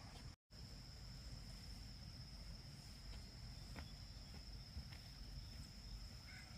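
Faint, steady high-pitched trilling of crickets in the background, over a low rumble, broken by a brief dead-silent gap about half a second in.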